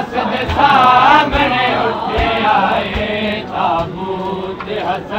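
Men's voices chanting a Punjabi nauha, a Shia mourning lament, together in a slow repeated melody, with dull low thumps about once a second keeping time.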